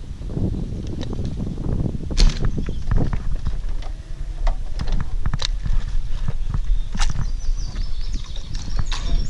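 A bowfishing bow loosing an arrow about two seconds in, a single sharp snap that is the loudest thing heard. It is followed by scattered clicks and rattles as the line and bow-mounted reel are handled to bring the arrow back.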